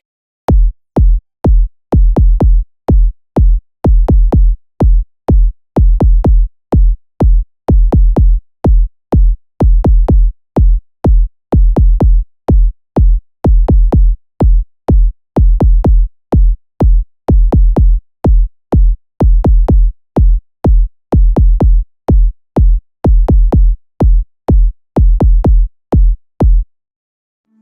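Electronic music track reduced to a bare drum-machine kick drum: deep, punchy kicks about two a second, often in quick pairs, with silence between them and no other instruments. The beat stops about a second before the end.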